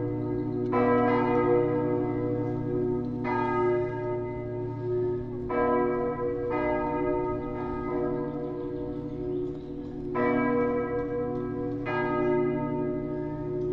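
Church bells of the Lourdes basilica ringing for mass: several swinging bells strike in turn every second or two, each stroke ringing on into the next over a steady low hum.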